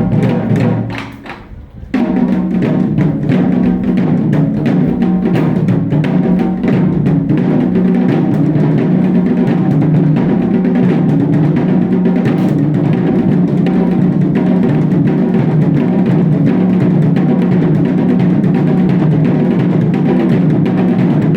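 Japanese taiko drums played in a steady, dense rhythm. The sound drops away briefly about a second in, then comes back abruptly.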